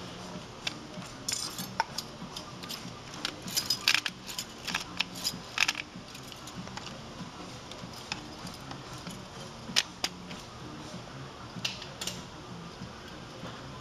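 Irregular sharp metallic clicks and clinks of hand tools and steel safety wire against the bolt heads of a turbine engine's accessory gearbox mounting flange, with small clusters of clinks at several points, over a steady low hum.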